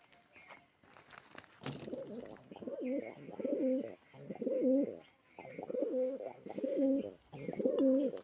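Pigeon cooing: a string of low, repeated coos that starts about one and a half seconds in and carries on steadily.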